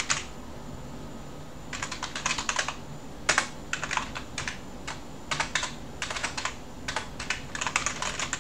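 Typing on a computer keyboard: quick runs of key clicks in short bursts, with a pause of about a second and a half near the start.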